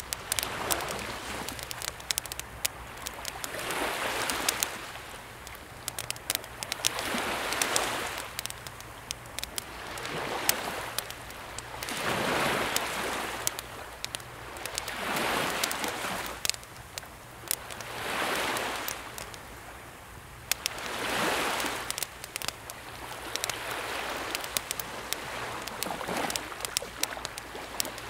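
Small sea waves washing gently ashore, each swell rising and falling every two to three seconds, with a wood campfire crackling and popping in sharp little snaps throughout.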